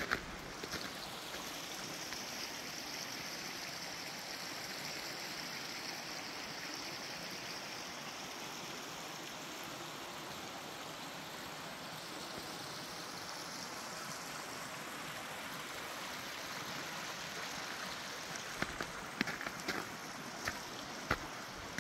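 Creek water rushing steadily, an unbroken hiss of flowing water. A few short, sharp clicks sound over it near the end.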